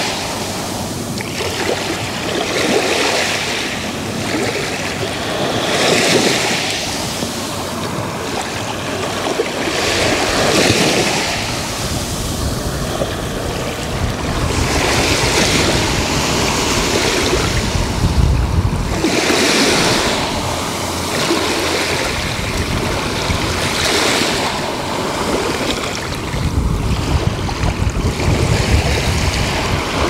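Small sea waves washing up onto a sand-and-shell shore at the waterline, each wash of surf swelling and fading about every four to five seconds. A low rumble of wind on the microphone comes in briefly in the middle and again near the end.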